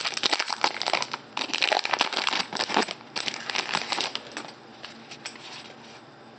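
A trading-card pack wrapper crinkling and crackling as it is torn open and the stack of cards is slid out. The crinkling dies down after about four seconds to a few faint rustles.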